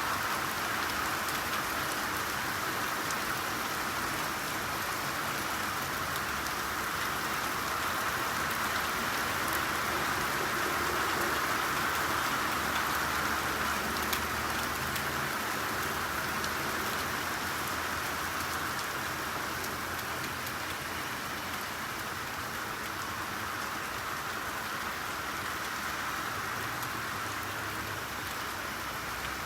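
Steady rainfall, an even hiss of rain with scattered drop ticks and one sharper tick about halfway through.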